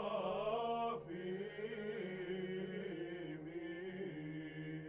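Byzantine Orthodox chant: voices singing a slow melody over a steady held drone note (ison).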